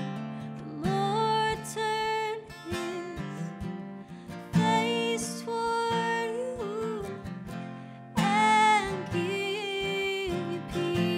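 Music: a worship song with acoustic guitar strumming under a sung melody with long held notes.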